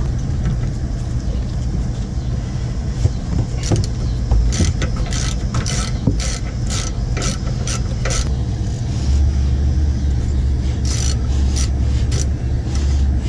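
Socket ratchet clicking in short runs, about two to three clicks a second, as a rear brake caliper's 13 mm bolt is turned out. A steady low rumble runs underneath and grows stronger past the middle.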